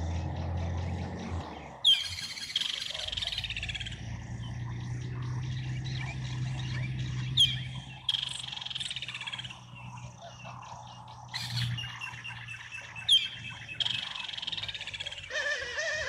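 Chirping and trilling wildlife calls: three sharp, high, quickly falling chirps about five to six seconds apart are the loudest, over repeated rippling trills and a steady low hum.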